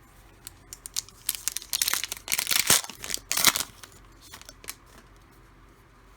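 A trading card pack's wrapper being torn open and crinkled: a run of crackling rustles starting about a second in and lasting a couple of seconds, followed by a few light clicks.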